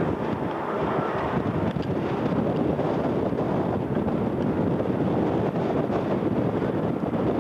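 Wind buffeting a camcorder's microphone, a steady rushing noise.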